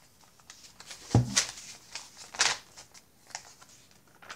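Paper and card being handled: journal pages turned and tags shifted in their pockets. A soft thump about a second in, followed by two quick rustling swishes, the second the loudest, and a few light ticks.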